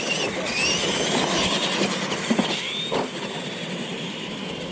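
Electric motors and gears of R/C monster trucks whining as they accelerate, the pitch rising through the first couple of seconds, over the noise of tyres on loose dirt. A couple of short knocks come a little past the middle.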